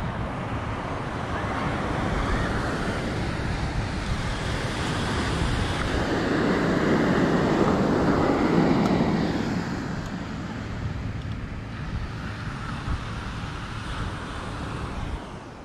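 Sea surf washing onto a beach, with wind on the microphone. The wash swells to its loudest about halfway through, then falls back.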